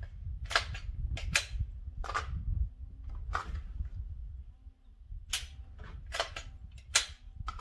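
About ten sharp clicks and snaps, irregularly spaced, from an unloaded handgun being drawn, gripped and presented during a dry draw drill, with a low rumble underneath.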